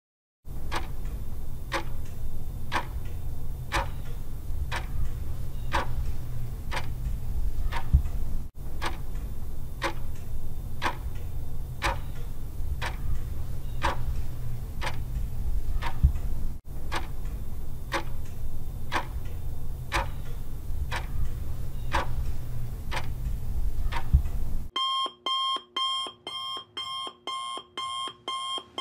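Countdown-timer sound effect: regular clock-like ticks, about two a second, over a steady low hum. About four seconds from the end it switches to rapid alarm-clock beeping, about three beeps a second, signalling that the time is nearly up.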